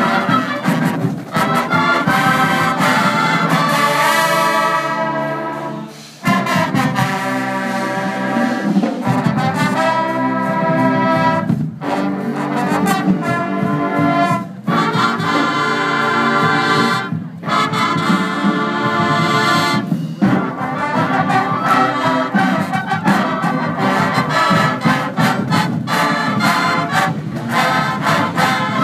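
Marching band's brass section playing full, loud chords, with trumpets, trombones and sousaphones, and a brief cutoff about six seconds in before the band comes back in.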